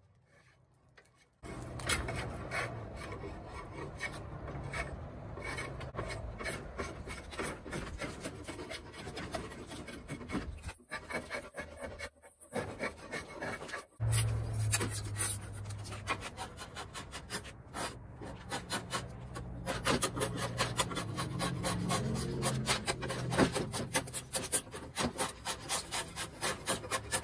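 Drawknife shaving wood off a square 2x4 stud oar shaft to round it: repeated scraping, rasping strokes, starting about a second and a half in, with a few short pauses, and coming faster and sharper in the second half.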